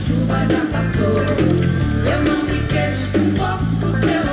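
Live pop band playing an upbeat song: a steady beat from drums and bass, with keyboards and a voice singing over it.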